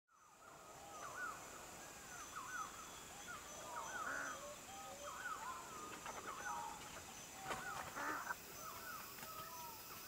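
A chorus of many birds calling over one another, short arched and looping calls that overlap, with a faint steady high-pitched hum underneath.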